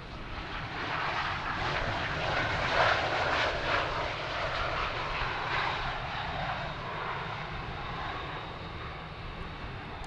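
Jet airliner's engine noise as the aircraft passes by. It swells about a second in, is loudest around three to four seconds in, and then slowly fades away.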